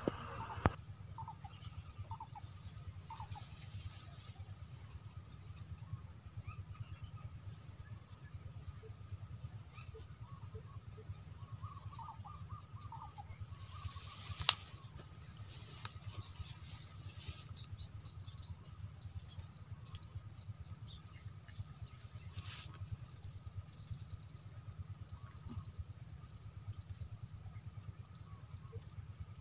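Insects chirring: a thin, steady high buzz throughout, joined about two-thirds of the way in by a much louder, pulsing high chirr close by.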